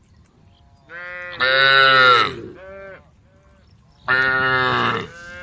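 Cows mooing: two loud, high-pitched calls, one about a second and a half in and one about four seconds in, with shorter, softer calls from the herd around them.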